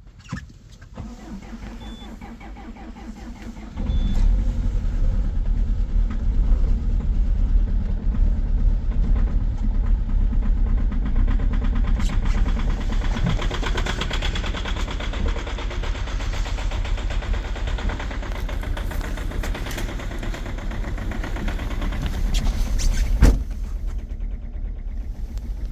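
2.0 HDi diesel engine cranking on the starter for about three and a half seconds at −20 °C, then catching and running with a very strong knocking, the hard clatter of a diesel cold-started in deep frost. One sharp knock stands out near the end.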